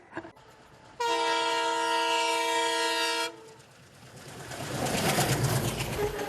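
A train horn sounds once, a steady chord of several tones held for about two seconds before it cuts off sharply. After it, the rumble of the train running on the rails builds up.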